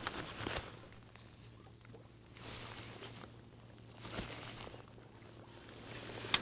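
Faint open-air noise on a boat on open water: soft swells of wind and water noise twice, a few light knocks, and a low steady hum underneath.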